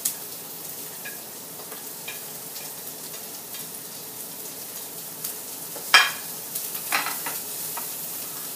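Chopped garlic and onion sizzling in hot coconut oil in a wok, with a slotted spatula scraping and clicking against the plate and pan; the sharpest clack comes about six seconds in, with another about a second later.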